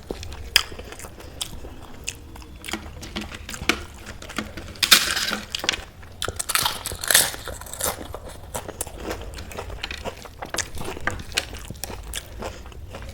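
Close-miked eating: chewing and crunching on crisp food, a run of sharp clicks with louder crunching bites about five and seven seconds in.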